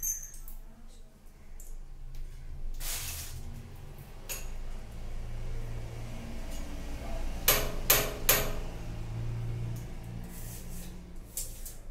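Knocks and clinks from hands-on work on a wash basin's fittings: scattered light knocks, a short scraping swish, then three sharp taps in quick succession about two-thirds of the way through, over a low steady hum.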